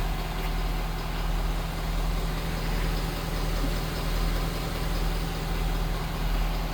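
Vehicle engine idling steadily: a low, even hum that does not change.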